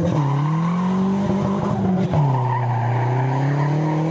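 Nissan 240SX S13 drift car's turbocharged engine on the throttle while the tires squeal and skid through a slide. The engine note holds, drops sharply about two seconds in, then climbs slowly again.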